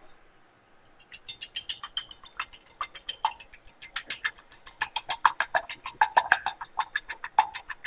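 Eggs being whisked in a bowl: a quick, even run of clicking strokes at about six a second, starting about a second in.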